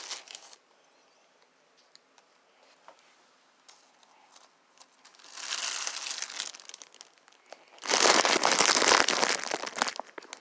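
Crinkling of plastic sheeting in two bursts, one about five seconds in and a louder one about eight seconds in, with a quiet stretch before them.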